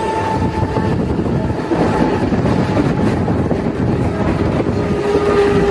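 Mumbai suburban local train running along the line, heard from on board: a steady rumble of wheels on rail. A thin steady whine fades out about a second in, and a lower one starts near the end.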